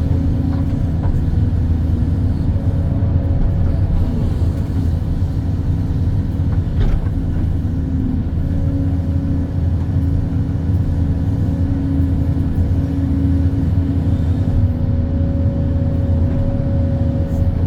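Excavator's diesel engine running steadily under load, a constant low hum with a steady higher hydraulic whine over it while the machine works.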